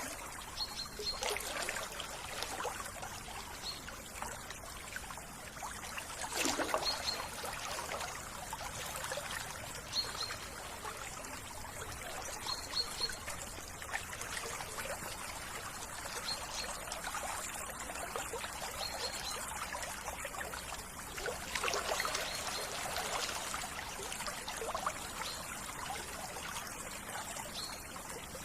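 A small stream trickling and babbling steadily, with short high double chirps every second or two.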